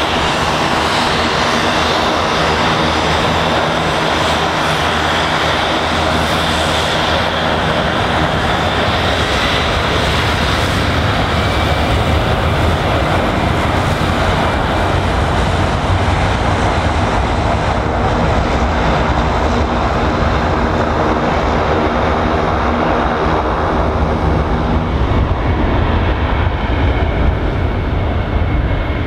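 Twin Garrett TPE331 turboprops of a Fairchild Swearingen Metro III taxiing, a steady propeller drone made of several even tones. Over the middle this fades under the low jet roar of an Airbus A319 on its takeoff roll, which grows louder near the end.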